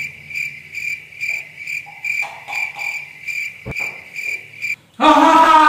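Cricket chirping in an even, repeating rhythm of about two high chirps a second, cutting off abruptly near the end. A single sharp knock sounds a little before the chirping stops.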